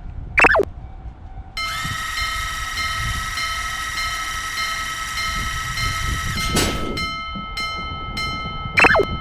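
Cartoon railroad-crossing sound effects. A short swooping glide comes first, then a train horn held steadily for about five seconds, ending in a whoosh. After that a crossing alarm bell rings about twice a second, and another quick swoop comes near the end.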